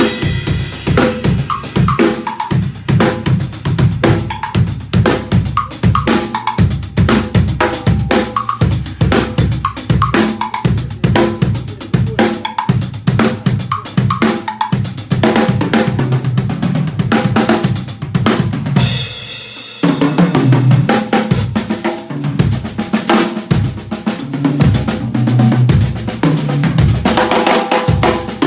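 Tama Starclassic drum kit played in a continuous groove of fast bass drum, snare and hi-hat strokes with rimshots and cymbals. A cymbal crash comes about two-thirds of the way through, followed by a passage heavy on the tuned toms.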